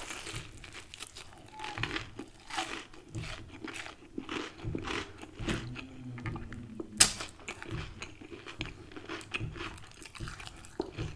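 A person chewing and crunching fried chicken close to the microphone, in irregular crunches, with one sharper, louder crack about seven seconds in.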